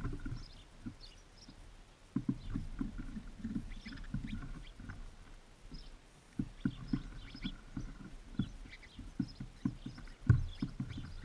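Birds feeding at a seed feeder right beside the microphone: irregular taps and knocks of beaks and feet on the feeder, with a louder knock near the end and faint short high chirps.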